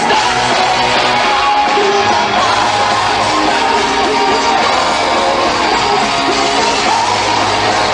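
Power metal band playing live at full volume, with distorted guitars, bass and drums, heard from the front of the crowd.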